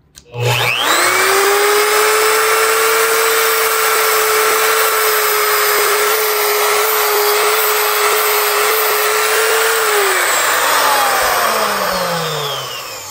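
A CK Turbo Sharp X tungsten grinder motor starts and runs with a steady whine while a tungsten electrode is sharpened against its diamond wheel. About ten seconds in it is switched off, and the whine falls in pitch as the motor spins down.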